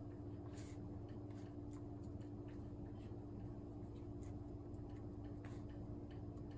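Light, irregular clicks of laptop keys being pressed, over a steady low hum.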